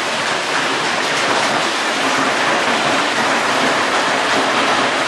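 Hailstorm: hail and heavy rain pelting down in a dense, steady hiss.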